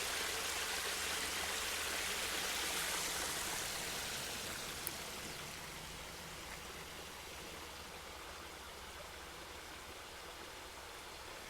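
Creek water running over rocks, a steady rushing that slowly grows fainter over the second half.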